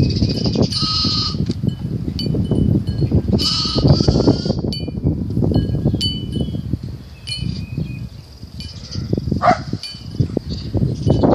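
Lambs bleating, high-pitched, about a second in and again about four seconds in, with another rising call near the end. Scattered short high tinkling pings and a constant low rumbling noise run underneath.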